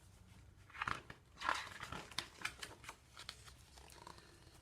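Paper rustling as a picture book's page is turned and handled: two short rustles about a second in, then a few light taps and clicks.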